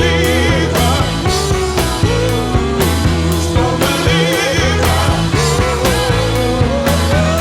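Psychedelic rock music: a band with drums striking about twice a second under a steady bass and a wavering lead melody.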